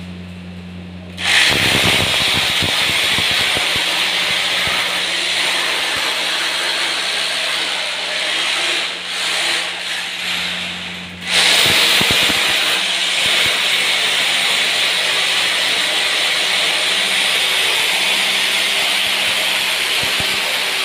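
Corded electric drill boring into a hard floor, a steady high grinding sound. It starts about a second in, falters and stops briefly about halfway, then starts again and runs on.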